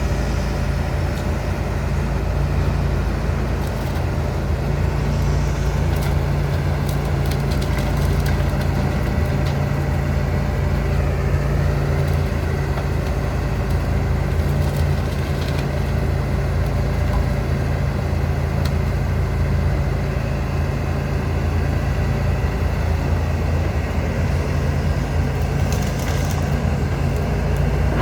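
John Deere 245G LC excavator's diesel engine running steadily under load, with scattered cracking and crunching of tree branches and wood as they are gripped and moved.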